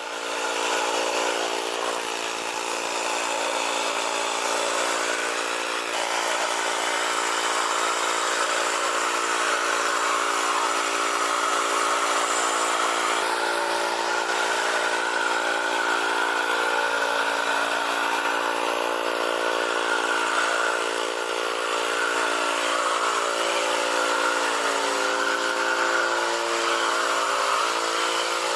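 An engine running steadily at a constant speed, its pitch shifting slightly now and then in the second half.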